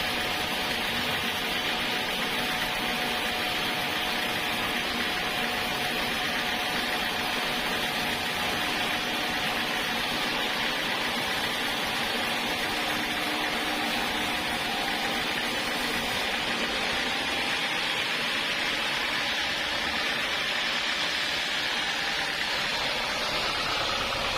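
Sawmill machinery running steadily: an even mechanical noise with a faint steady hum.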